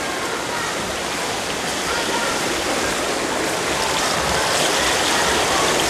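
Swimmers splashing through a race while spectators cheer and shout, a steady wash of water and crowd noise echoing in an indoor pool hall.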